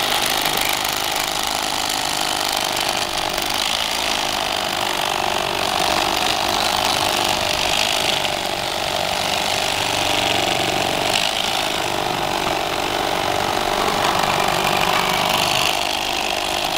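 Electric fillet knife running steadily as its blades cut the fillet off a rainbow trout.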